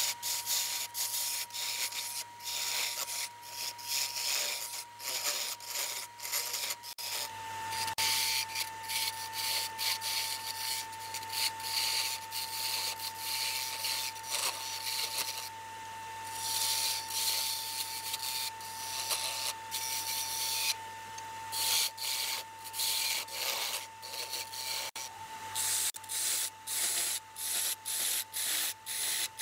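Turning tool cutting into a walnut workpiece spinning on a wood lathe: a rough scraping hiss in quick, uneven strokes as the tool is pushed in and eased off. A steady high whine from the lathe runs underneath.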